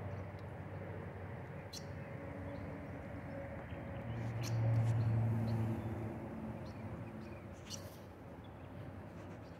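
Outdoor ambience: a steady low rush with a low hum that swells about halfway through, and scattered short, high bird chirps.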